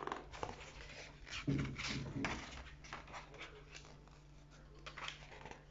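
Paper rustling and crackling as the large pages of a picture book are handled and turned, with a louder, lower sound about a second and a half in.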